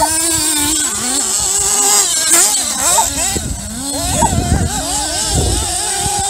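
Two 1/8-scale nitro RC buggies, a Kyosho MP9 and an HPI Trophy, with their small glow engines running at high revs, the pitch rising and falling constantly as they accelerate and back off, with a brief steadier stretch near the end.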